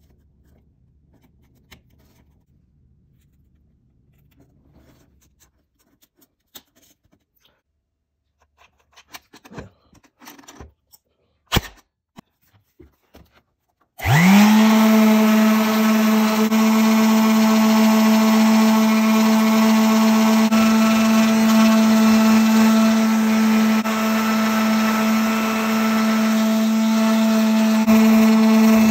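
Electric random orbital sander spinning up about halfway through, then running steadily while sanding dried spackle smooth on a repaired wooden stair bullnose. Before it starts, only a few light taps and clicks of handling.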